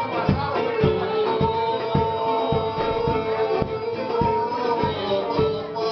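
Live music playing a kontylies tune: plucked string instruments keep a steady beat of about three strokes a second under a held melody line.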